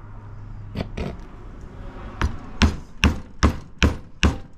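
Hammer striking the end of a screwdriver held in a hole in a steering wheel spoke. Two taps about a second in, then a steady run of blows, about two and a half a second, from about halfway.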